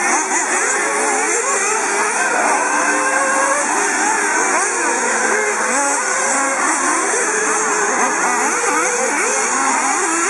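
Several 1/8-scale nitro RC buggy engines racing at once, each rising and falling in pitch as the cars accelerate and brake around the dirt track, in a constant layered whine.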